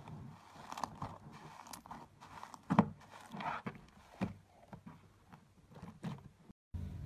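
Hand squishing and pressing slime, giving a run of small irregular clicks and pops, with one sharp pop about three seconds in. The sound cuts out for a moment near the end.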